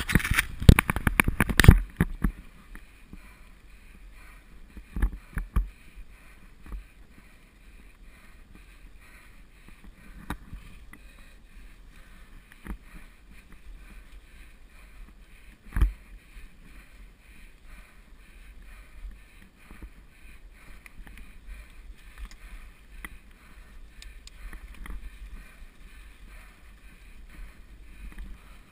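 Mountain bike riding over a leaf-covered dirt singletrack: a steady muffled rumble broken by knocks and rattles as the bike jolts over the ground. A run of loud knocks fills the first two seconds, a few more come around five seconds in, and single sharp knocks follow later.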